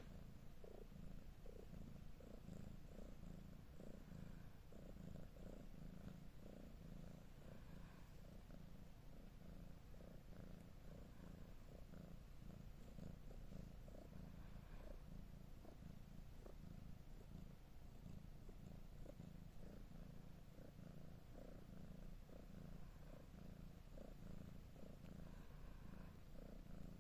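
Domestic cat purring: a faint, low, continuous rumble.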